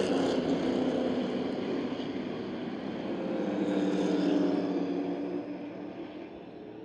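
A pack of stock race cars running at speed on a short oval, their engines droning together, growing louder about four seconds in as they come by and then fading away.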